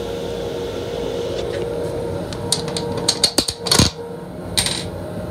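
Steady hum with a constant tone in the restroom of a Long Island Rail Road M7 railcar. About two and a half seconds in comes a quick run of sharp clicks and knocks, then a short noisy burst, with one more brief burst a second later.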